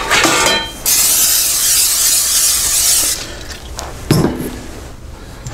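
Aerosol can of Pam cooking spray spraying into a metal cake pan: one steady hiss about two seconds long, followed about a second later by a couple of short knocks.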